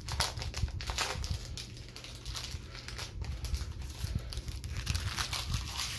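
Yu-Gi-Oh! trading cards and their foil booster-pack wrapper being handled: irregular crinkling and rustling, over a steady low hum.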